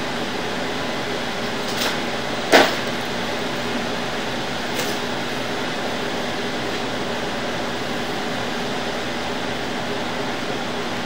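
Steady mechanical hum, with three short clicks; the sharpest comes about two and a half seconds in.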